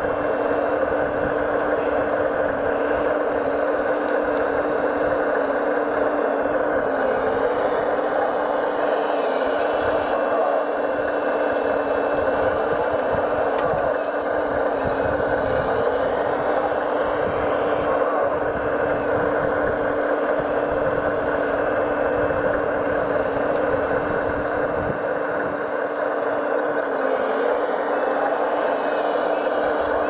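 Radio-controlled model vehicle running: a steady drive hum with a constant tone that dips slightly now and then, and a rattly, scraping noise over it.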